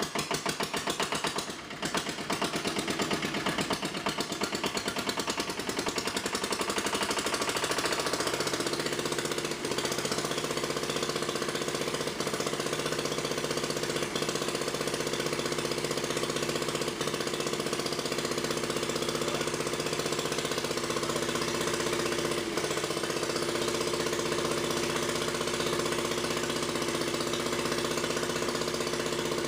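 A 1930s Onan single-cylinder diesel generator set running with a loud, rapid, even firing beat. It gathers speed over the first several seconds and then holds a steady run.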